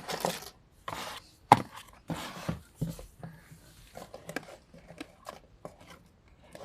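Fidget toys being handled, sorted and set down: irregular light knocks and clicks with soft rustling between them, and one sharper knock about a second and a half in.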